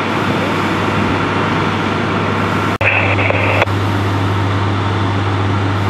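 Parked fire trucks' diesel engines idling, a steady low hum under even engine noise. A brief high-pitched tone sounds for under a second about three seconds in.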